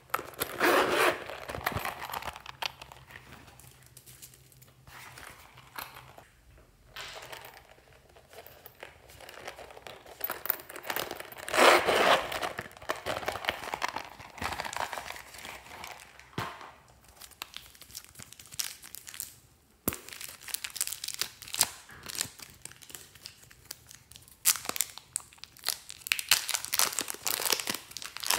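Zippers on glossy pouches pulled open in loud rasping bursts about a second in and again about twelve seconds in, with plastic packaging crinkling as the contents come out. Near the end, dense crackling as blue clay and pink slime are pulled apart by hand.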